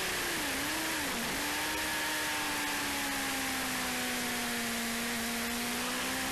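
Motorcycle engine heard onboard at speed under a heavy rush of wind noise. The revs dip sharply twice in the first second and a half, then hold, sagging slowly and climbing again near the end.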